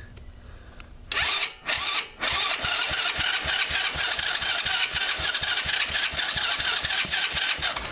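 Electric starter cranking the Coolster 125cc ATV's single-cylinder engine with the choke on. It turns over in two short bursts, then cranks steadily for about five and a half seconds without catching, the fuel system having been run out of gas.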